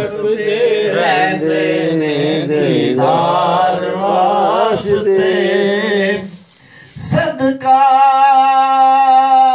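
A man's voice singing a Punjabi naat (devotional praise song) in a slow, wavering chant. It breaks off briefly about two-thirds of the way through, then settles into one long held note.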